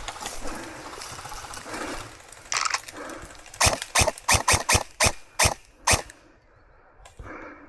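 Airsoft gun firing single shots: about eight sharp snaps over a couple of seconds in the middle, after a stretch of jumbled noise.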